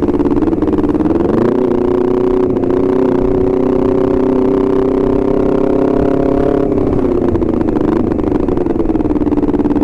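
Honda CBR250RR's parallel-twin engine under way: the revs climb about a second in, hold steady for several seconds, then fall away as the rider eases off, over low wind and road rumble.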